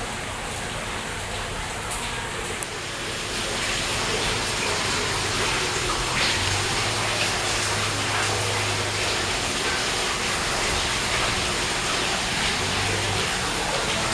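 Heavy rain pouring down in a summer thunderstorm, growing louder about three seconds in and then staying steady.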